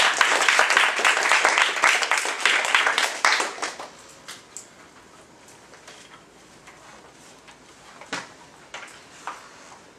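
A small audience applauding for about three and a half seconds at the end of a talk, then dying away. A few faint knocks follow.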